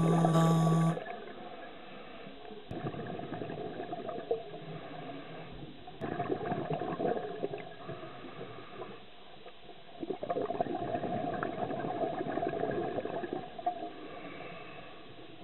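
Scuba diver's exhaled regulator bubbles heard through an underwater camera housing: a gurgling rush that swells in three surges of a few seconds each, with low hiss between. A steady chord of music cuts off about a second in.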